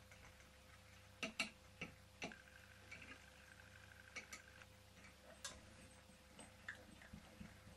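Light clicks and taps, hard plastic and metal knocking together, as a small brass toy vertical steam engine on a Meccano base is handled with a green spouted bottle. The loudest come as a handful of taps about one to two seconds in, then a few scattered ones; otherwise near silence.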